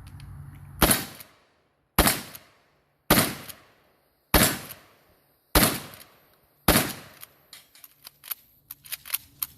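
Mossberg 590 12-gauge pump shotgun firing 00 buckshot, unsuppressed: six loud shots at a steady pace of about one every 1.2 seconds until the gun is empty, followed by a run of light clicks and knocks.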